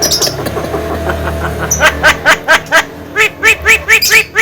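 Javan myna (jalak kebo) giving a rapid run of repeated, laugh-like chattering notes, about four or five a second, starting about halfway in. A low steady hum underlies the first half.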